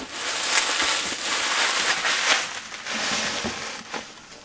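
Bubble wrap crinkling and rustling as a boxed plastic model kit is pulled out of it and handled, the crackle dying down near the end.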